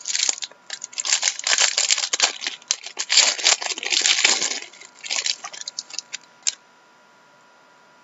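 Foil trading-card pack wrapper crinkling and tearing as it is ripped open by hand: dense crackling that thins to a few scattered clicks and stops about six and a half seconds in.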